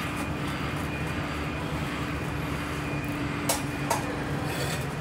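Scania N94UB bus's diesel engine running as the bus moves slowly, heard from inside the bus near the front: a steady rumble with a steady hum in it. Two brief knocks about three and a half seconds in.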